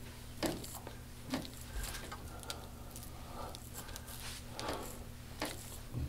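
Faint rubbing and a few soft clicks as a hand-held massage roller bar is pressed and rolled over bare skin on the upper back, over a steady low hum.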